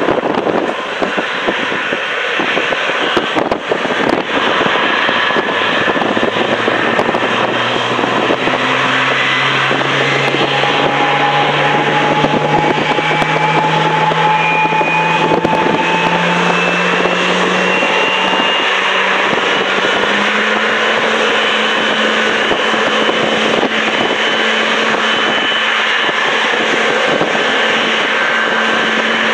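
Boeing 777-300ER's GE90-115B turbofan engines running at low taxi power: a loud, steady jet noise with whining tones that rise in pitch through the middle as thrust is eased up, then hold steady.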